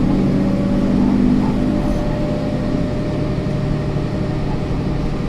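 City bus running under way, heard from inside: a steady engine drone over road rumble, the engine note stepping down about three seconds in.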